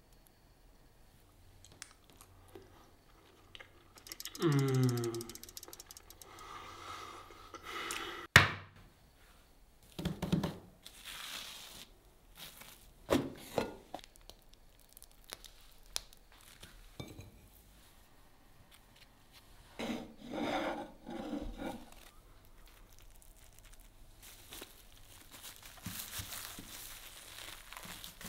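Kitchen handling sounds from sushi-making: a short rising squeak about four seconds in, a sharp knock a few seconds later, scattered thuds and rustles, then the crinkle of a cling-film-wrapped bamboo rolling mat as a roll is rolled near the end.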